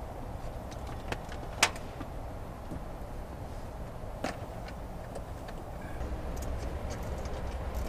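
Sharp plastic clicks and light rattles from a cable being fed behind a truck's lower dashboard panel, loudest about one and a half seconds in and again about four seconds in, over a steady low rumble.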